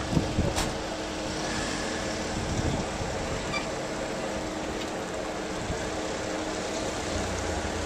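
Motor vehicle engine running steadily, with a steady hum and one sharp click about half a second in.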